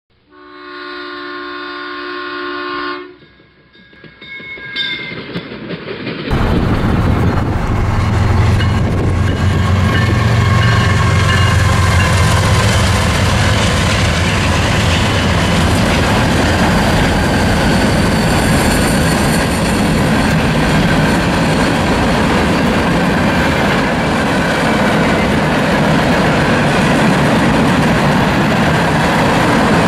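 A short held electronic tone at the start, then a CSX diesel freight train passing close by: the locomotives' engines rumble past first, followed by a steady din of freight cars rolling over the rails.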